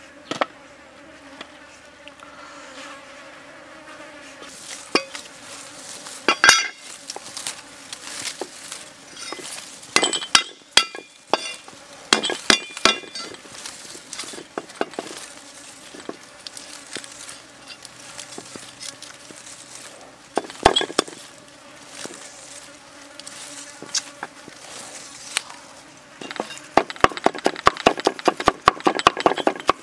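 Insects buzzing, with scattered clinks and taps from raw ribs and garlic being handled. Near the end a meat cleaver starts chopping garlic on a wooden chopping block, a quick run of sharp knocks, several a second.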